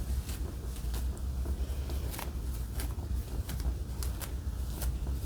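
Scattered light clicks and rustles of handling over a steady low hum.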